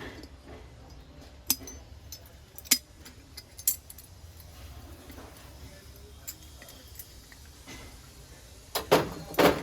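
Metal items, likely brass utensils, clinking and knocking as they are handled: a few sharp separate clinks, then a louder cluster of knocks near the end.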